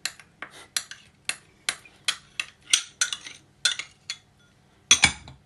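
Metal spoon clinking against a small glass bowl while paste is scraped and knocked out of it: about twenty quick, light taps over four seconds. A single louder knock follows near the end.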